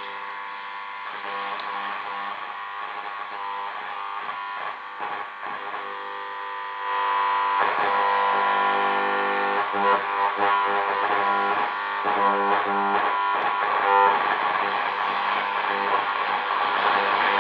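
Marconiphone T21A vintage radio on the short-wave band playing music from a station through its speaker, amid interference. The sound gets louder about seven seconds in.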